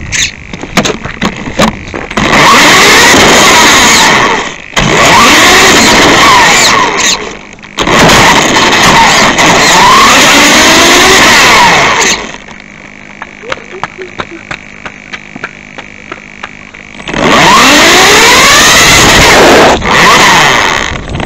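Small radio-controlled car driving on a rough road, the camera riding on it: the motor whines up and down in pitch over tyre and road noise in four loud spells of a few seconds each. Between the spells are quieter stretches of light ticking, the longest near the middle.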